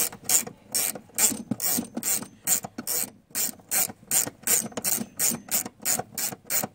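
Hand socket ratchet clicking in short, even bursts, about three a second, as it undoes a 14 mm cap nut, the pawl clicking on each return stroke.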